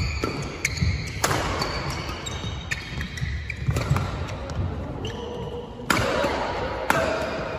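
Badminton rally: racket strings striking the shuttlecock in a quick exchange of sharp cracks, three of them especially loud, with court shoes squeaking on the floor between shots.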